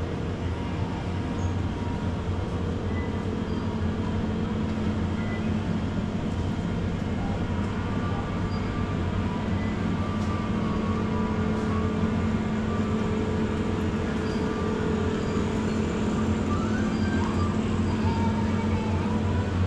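Supermarket ambience: a steady low hum from refrigerated display cases and ventilation, with faint store background music on top.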